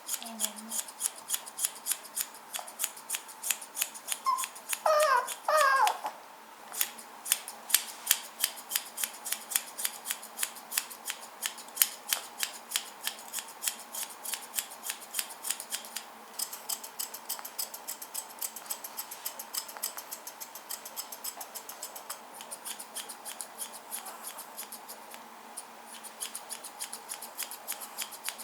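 Grooming scissors snipping through a toy poodle puppy's face hair in quick, steady cuts, about two to three snips a second, with a short pause about six seconds in. A few brief high-pitched voice-like sounds come about five seconds in.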